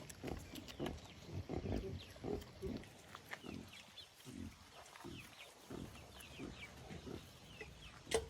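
Pigs grunting: short low grunts come several times a second, and they thin out briefly around the middle.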